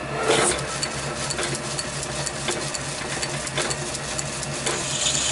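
Small metal lathe running with a steady hum while a hand file scrapes against the end of a spinning brass part, chamfering it: a continuous scratchy rasp broken by many short clicks as the file strokes.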